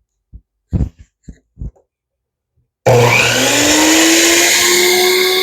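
Tool Shop 10-inch sliding compound miter saw switched on about halfway through: the motor starts suddenly and spins up with a rising whine, then runs steadily and loud at full speed, ready for a sliding cut.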